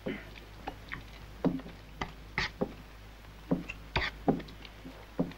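A man wolfing down beans and bread: about a dozen short, irregular eating noises, clicks and scrapes with chewing, spread unevenly.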